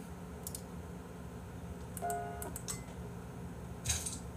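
Quiet room tone with a low steady hum and a few soft clicks, a brief pitched tone about two seconds in, and a sharper click near the end.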